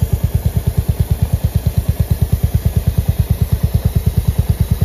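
Royal Enfield Hunter 350's single-cylinder engine idling in first gear on the main stand, turning the rear wheel and chain, with a steady rapid exhaust beat. A faint high hiss of chain-lube spray runs along with it and stops near the end.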